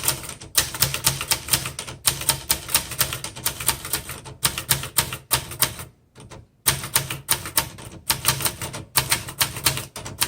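A 1972 Webster XL-747 portable manual typewriter, built by Brother, being typed on in quick runs of key strikes, several a second, with a short break about six seconds in.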